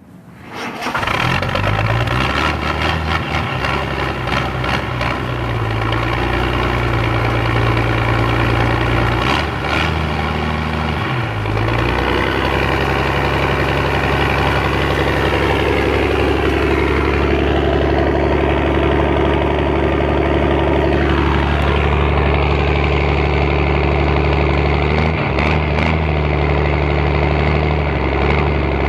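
Ford 700 truck engine running through a straight-through open exhaust, mostly at a steady idle, with the engine note dipping and changing pitch as the revs shift about 10 seconds in.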